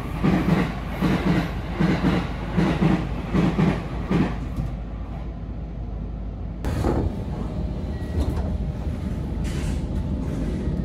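Running noise of a JR Kyushu 817 series electric train, heard from inside the car: a steady low rumble, with the wheels clacking rhythmically over rail joints through the first few seconds. The sound changes suddenly about two-thirds through and settles into a steadier rumble.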